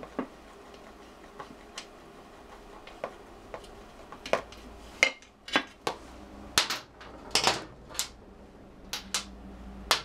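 Scattered sharp metallic clicks and clinks of hand tools and fasteners as the front engine cover of a BMW R100GS PD is unfastened and lifted off, the knocks coming more often in the second half.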